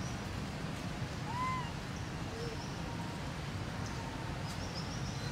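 Outdoor tree-canopy ambience: a steady low background rumble with faint high bird chirps, and one short call that rises and falls in pitch about a second and a half in.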